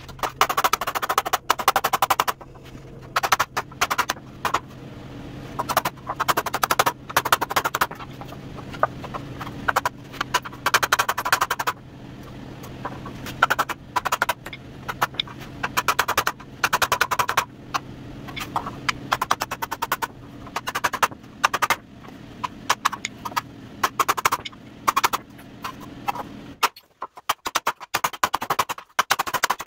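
Hammer beating dents out of the rusted sheet-steel top section of a 1948 GMC pickup tailgate, in quick runs of sharp, ringing metal blows with short pauses between.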